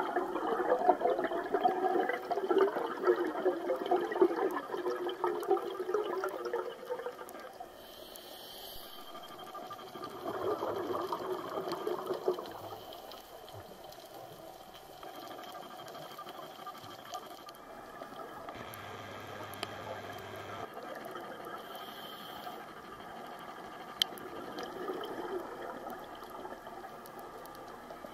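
Scuba diver's exhaled bubbles, heard underwater: a long gush of bubbles, then a second shorter one about ten seconds in, with a faint steady underwater hiss in between.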